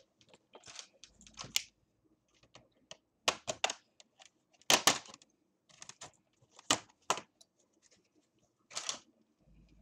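Plastic snap clips of a laptop's bottom cover popping loose as the cover is pried off: a string of sharp, irregular clicks and short crackling scrapes, the loudest about five seconds in.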